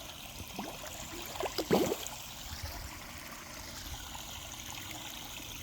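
Water trickling steadily into a backyard pond, with a brief louder sound about a second and a half in.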